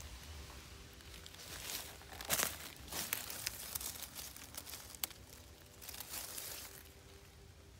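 Dry fallen leaves rustling and crackling in irregular bursts as a hand pushes through the leaf litter around a mushroom, with one sharp click about five seconds in.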